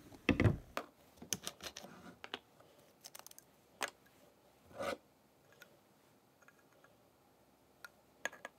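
Small clear plastic spray bottle and its parts handled on a wooden desk: scattered light plastic clicks and taps, with a louder knock about half a second in and another near five seconds.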